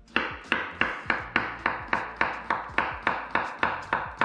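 Kitchen knife chopping zucchini fast on a wooden cutting board, the blade knocking on the board in an even rhythm of about four cuts a second.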